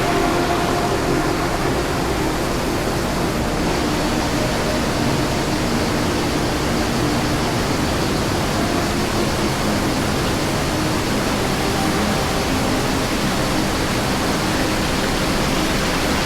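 Rushing water of a canyon waterfall, a loud steady roar.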